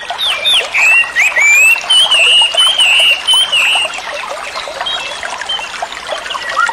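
Birds chirping and singing, with a wavering whistled song over a dense, busy background of short chirps. The sound starts and stops abruptly at cuts.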